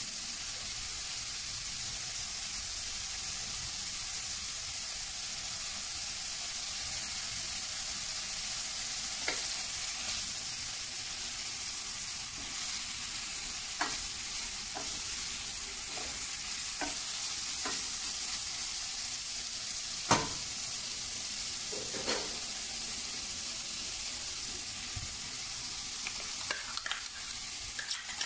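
Pan of kohlrabi cooking, sizzling steadily, with a few light clicks and taps against the pan. The sharpest tap comes about twenty seconds in, and there is a quick run of them near the end.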